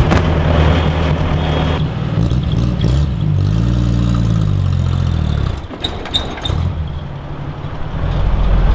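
Old pickup truck engine idling, then revving up and easing back off around the middle, and fading as the truck drives away.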